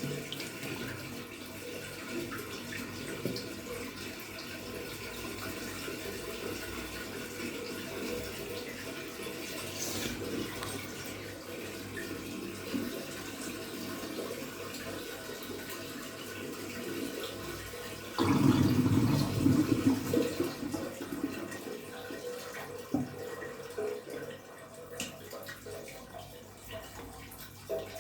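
LG top-load washing machine running with water pouring and sloshing in the drum, steady, with a louder surge about eighteen seconds in that lasts a few seconds. It is a test run after the drum's broken nut was replaced.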